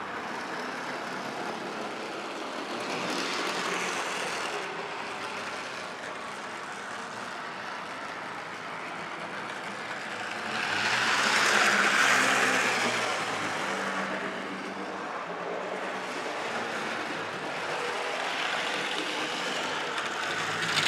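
Model train running on the layout's track: a steady rolling rumble that swells louder for a couple of seconds a little past halfway, as the train passes close.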